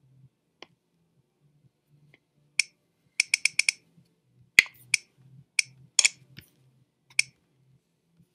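Computer clicks picked up by the recording microphone: about a dozen sharp clicks, starting a few seconds in, with a quick run of four and then single clicks.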